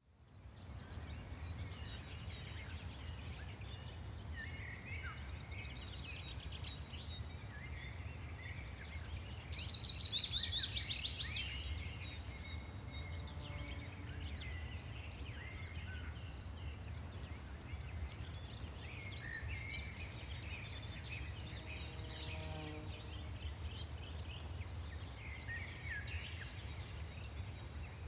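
Several birds chirping and calling, with one loud, rapid trill that steps down in pitch about nine to eleven seconds in, over a steady low rumble of background noise.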